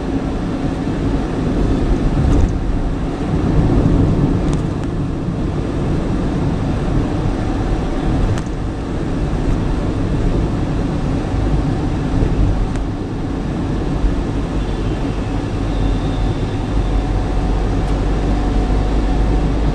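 Road noise inside a moving car's cabin: a steady low rumble of the engine and tyres, with a few faint ticks.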